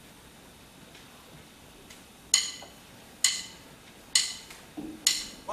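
Quiet hall, then from about two seconds in four sharp metallic percussion strikes, evenly spaced about one a second, each ringing briefly: the opening beat of a big band number.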